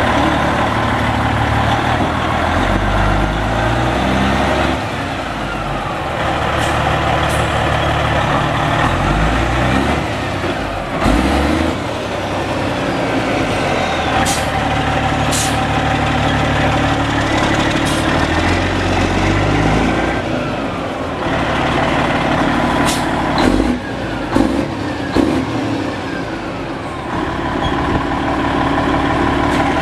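Detroit Diesel Series 60 12.7-litre inline-six turbo diesel of a Freightliner Columbia semi truck running, its engine pitch stepping up and down repeatedly. A few short sharp sounds come through in the second half.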